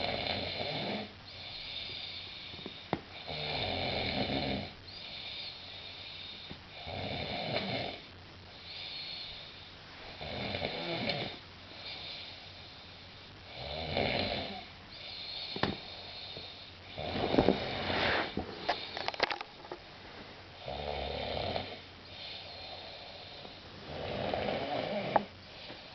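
A man snoring heavily in a drunken sleep after too much to drink: eight strong snores, about one every three and a half seconds, with a fainter, higher breath sound between them and a few short clicks near the middle and the end.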